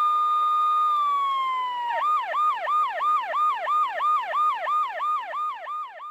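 Police car siren holding one steady tone that sags slightly in pitch after about a second. About two seconds in it switches to a fast yelp, about three to four sweeps a second.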